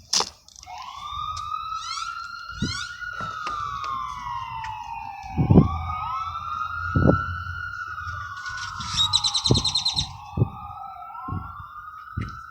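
Emergency vehicle siren wailing, its pitch rising and falling slowly in long overlapping sweeps. A short burst of rapid high chirps comes about nine seconds in, with a few scattered knocks.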